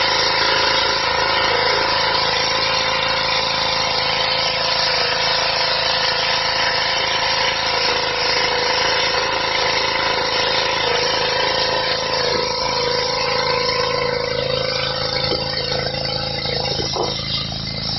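Petrol-engined high-pressure washer running steadily, its engine and pump driving a jet of water that hisses onto stone paving. The engine's note shifts about thirteen seconds in.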